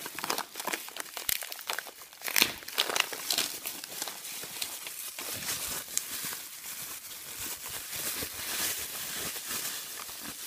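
Plastic bubble wrap crinkling and crackling as hands unwrap a jar from it: a continuous run of small crackles, with a few louder crackles about two to three seconds in.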